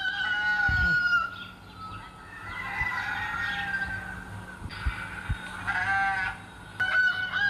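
Recorded rooster crowing played from a phone's speaker: several long, drawn-out calls one after another, with short pauses between.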